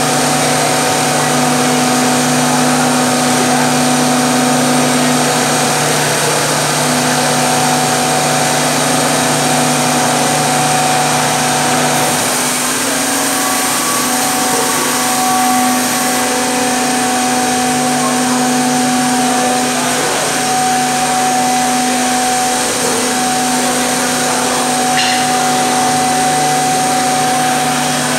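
Multi-spindle CNC mortising machine (Zhan Fei MSK3725X2) running, its router spindles whining steadily as it machines mortises in wooden rails. Several steady tones hold throughout, shifting slightly about halfway through.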